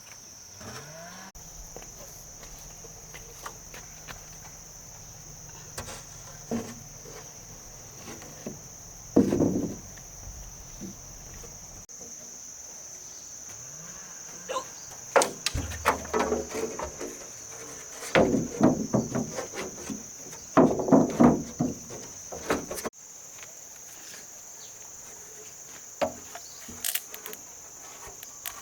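Steady high-pitched drone of crickets and other insects. Over it come scattered knocks and clatters, with a busy run of them around the middle.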